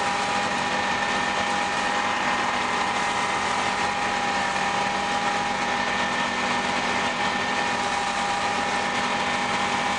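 John Deere 3300 combine running steadily under load while harvesting soybeans, its engine at about 2,500 rpm: an even, unchanging machine noise with a steady whine.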